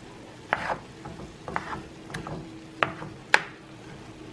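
A cooking spoon scraping and knocking against a nonstick frying pan while breaking up ground turkey sausage as it browns: several short scrapes and clicks, the loudest near the end.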